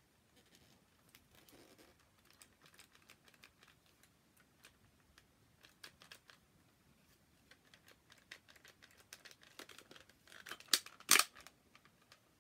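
Hard plastic toy foam blaster being handled: scattered small clicks and rattles of its plastic parts, with two louder clicks near the end.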